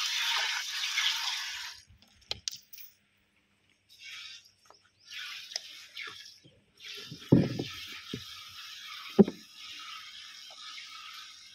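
Hand milking of a Murrah buffalo: thick jets of milk squirting into a steel bucket, a steady hiss that stops about two seconds in and comes back in stretches. Two thumps in the second half are the loudest sounds.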